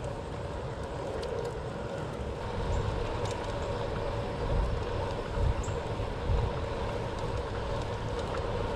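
Riding a hybrid bicycle on a paved path: the steady rolling hum of Specialized Pathfinder tyres on asphalt, with wind buffeting the microphone in gusts that are strongest in the middle.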